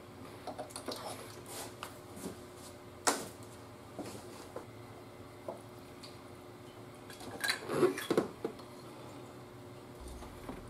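Hand tools and parts clicking and clattering against metal engine components in a car's engine bay, irregular and without rhythm. There is one sharp knock about three seconds in and a short burst of louder clatter near the end.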